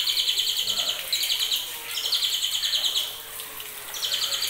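Juvenile white-rumped shama, about two months old, singing in high, fast rattling trills. The phrases come one after another, each about a second long with short gaps between them.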